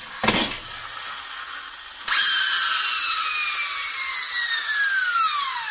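Flywheel friction motor of a 1980-ish Tonka Clutch Popper pickup toy car, first wound up with a rubbing whir as its wheels are pushed back and forth across the bench. About two seconds in, a loud high-pitched whine starts suddenly and falls steadily in pitch as the free-spinning flywheel runs down. The whine is the toy's turbo sound, a little plastic piece vibrating against the dust cover; the motor is working fine.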